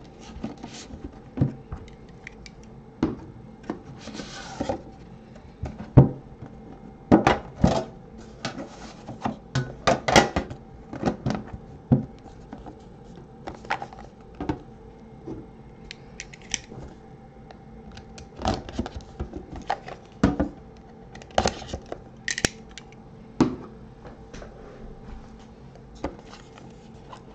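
Hands handling a trading-card box: a cardboard sleeve, a metal tin and a card box inside it being slid, opened, lifted and set down, giving irregular taps, clicks and short scrapes.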